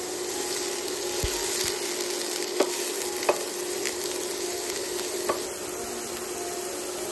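Diced carrot, celery and red onion sizzling in oil in a nonstick frying pan as a wooden spatula stirs them: the soffritto base of a ragù being sautéed. A few sharp knocks of the spatula against the pan stand out over the steady sizzle.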